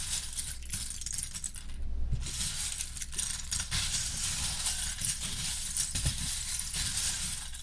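Loose plastic Lego pieces clattering and rattling continuously over a steady low hum, with a brief pause about two seconds in.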